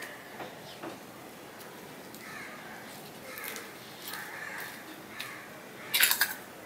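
A bird calling several times in short calls through the middle. Near the end comes a quick cluster of sharp clinks as a steel spoon strikes a small steel bowl of sugar.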